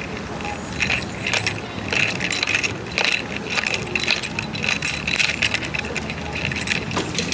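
Footsteps on a concrete sidewalk at a walking pace, about two steps a second, each with a light metallic jingle like keys jangling in a hand or bag.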